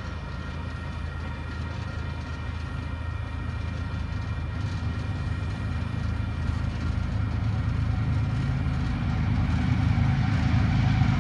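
Union Pacific diesel freight locomotives approaching at the head of a double-stack train, a low engine rumble growing steadily louder.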